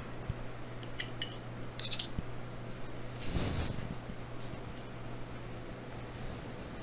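A few light metallic clicks from a small metal leaf-shaped clay cutter being handled and tapped against the ceramic tile work surface, about one and two seconds in, then a soft brush or rustle about three and a half seconds in, over a low steady hum.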